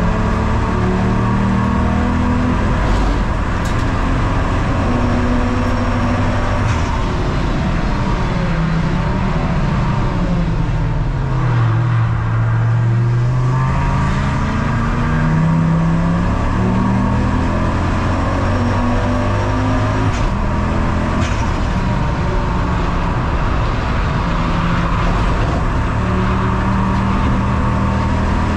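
Ford Focus Mk2 race car's engine running hard, its pitch climbing and dropping in steps as it shifts through the gears. It falls lowest about twelve seconds in before pulling back up.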